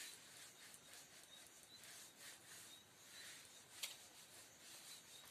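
Faint rubbing of a duster or cloth wiping writing off a whiteboard, in repeated swishing strokes, with one sharp tap about four seconds in.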